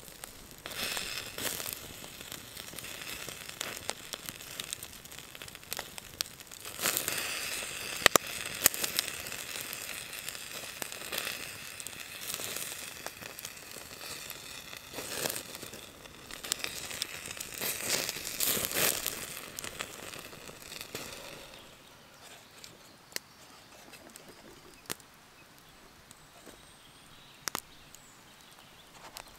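Open wood fire crackling and popping under a burger grilling in a wire grill basket, with surges of hissing and sharp snaps that ease off about two-thirds of the way in to scattered single pops.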